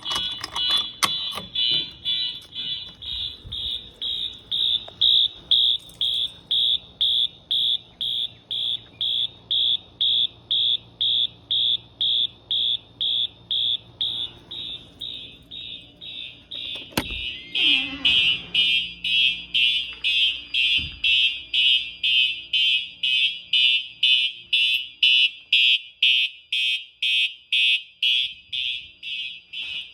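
Fire alarm horns sounding in an even, rapid pulse of about three loud beeps a second. A single knock comes a little over halfway through, after which the horns sound fuller.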